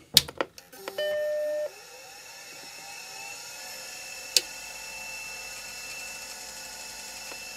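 Power switch clicks, then a compact Macintosh's startup chime, a short tone about a second in. The 40 MB Conner SCSI hard drive then spins up with a rising whine, gives a sharp click about four seconds in, and settles to a steady high whine: the drive staying spun up rather than spinning back down.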